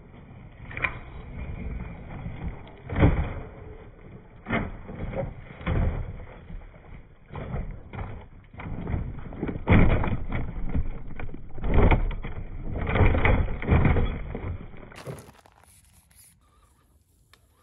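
Scale RC crawler truck jolting over rough trail: a low rumble with repeated knocks and thumps of the chassis and wheels. About fifteen seconds in it cuts to much quieter sound.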